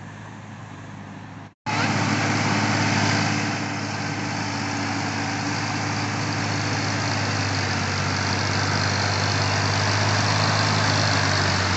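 Sonalika DI 740 III tractor's diesel engine running steadily under load as it works a rotavator through a flooded paddy field. Faint and distant for about the first second and a half, then, after a momentary break, much louder and close by.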